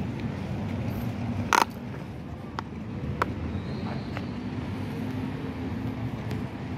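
Steady low rumble of road traffic, with a few short sharp clicks, the loudest about a second and a half in.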